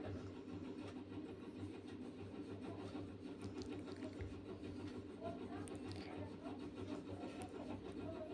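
Spatula scraping and stirring a thick turmeric and ginger paste as it roasts in a heavy kadhai, faint, over a steady low hum.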